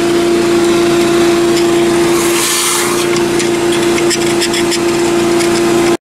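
Shop vacuum running steadily with a constant motor hum, its hose nozzle sucking dirt and debris out of an engine bay, with a few light clicks and rattles. It cuts off suddenly near the end.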